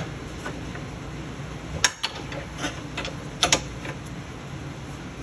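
Scattered sharp metallic clicks and knocks of tools and a pry bar against the sway bar and suspension parts. There are two clusters, the loudest about two seconds in and about three and a half seconds in, over a steady low hum.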